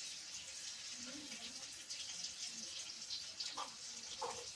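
Maggi noodles cooking in a pan on a gas stove, giving a faint, steady sizzling hiss. Two short soft knocks come near the end.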